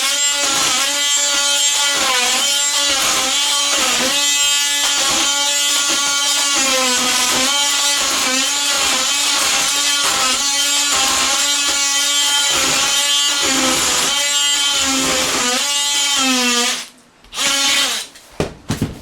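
DeWalt 20V Max oscillating multi-tool running with a scraper blade, chiseling glued-down floor tile off particle board: a loud, steady buzz that sags in pitch roughly once a second as the blade bites and loads. It stops near the end, followed by a few short knocks.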